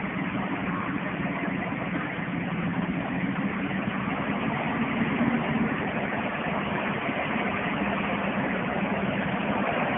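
Engine of a three-wheel Tree Farmer log skidder running steadily under load as the machine pulls down the track.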